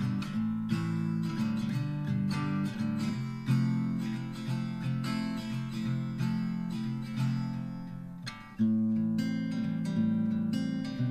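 Background acoustic guitar music, plucked and strummed chords. It fades briefly about eight and a half seconds in, then a new phrase starts.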